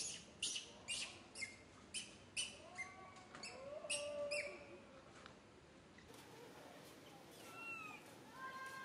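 Infant macaque crying: short, shrill cries about twice a second for the first few seconds, then longer wavering whimpers, going quiet about five seconds in, with a few falling calls near the end.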